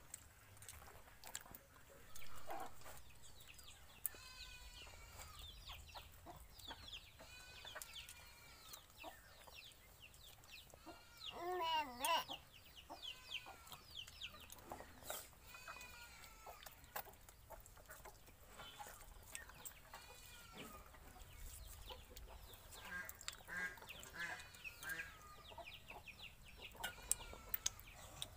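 Chickens clucking, a long string of short calls that is loudest about twelve seconds in, with scattered small clicks.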